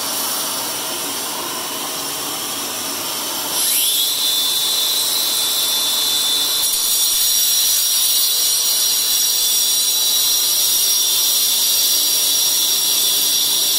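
A shop vacuum runs with a steady rush. About three and a half seconds in, the whine of a DeWalt cordless angle grinder rises quickly, then holds steady and louder as its segmented diamond blade cuts along the marble tile.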